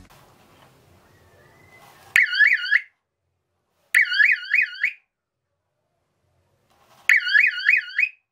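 Small electronic siren of a homemade alarm circuit sounding three times, about a second each. Each burst is a fast warble rising and falling about five times a second, and each starts and stops abruptly.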